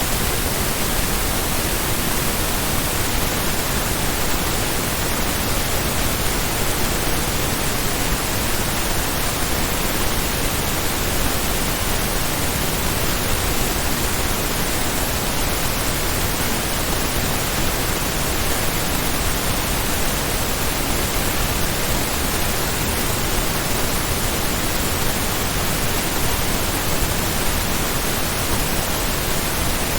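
Stereo pink noise test signal: a steady, even hiss spread across the whole range from deep bass to top treble, with no change in level throughout.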